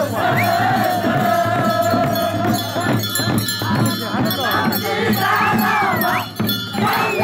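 A crowd singing and shouting together, one long held note for about the first three seconds, with whoops, over a jingle of bells and drum beats.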